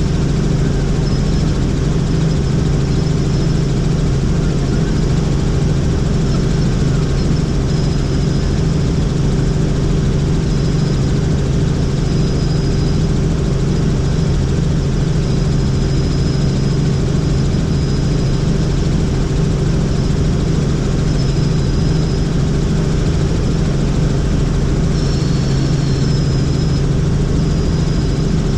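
Helicopter in flight, its engine and rotors making a constant low drone, with a thin high whine that comes and goes.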